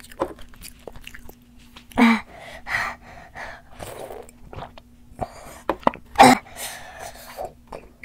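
A woman's breath sounds after eating extremely spicy sauce: two sharp, noisy outbursts, about two seconds in and about six seconds in, with quieter breaths and sips of milk between them. They are her reaction to the burning heat of the sauce.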